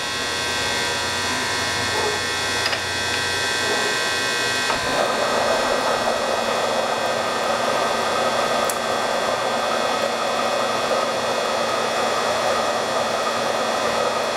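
Belt-driven milling machine running a rotating boring head over a steam-engine crankshaft journal, with a steady whir. About five seconds in, the tool starts cutting the steel and a steady rough cutting noise joins and holds, as the journal is skimmed on a deeper pass.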